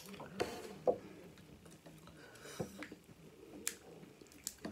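Snow crab leg shell cracking and snapping as it is broken open with the hands and teeth to get the meat out: about five sharp, irregularly spaced clicks.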